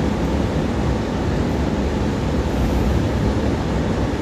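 Steady low rumble and rushing noise of a moving train, heard from inside the carriage.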